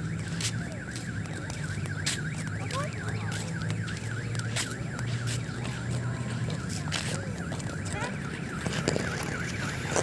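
An alarm-like warbling tone, dipping and rising in pitch about four times a second, over a low steady hum.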